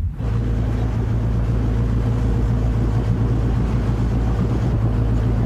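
Small open motor launch running at speed: a steady engine drone with water rushing along the hull.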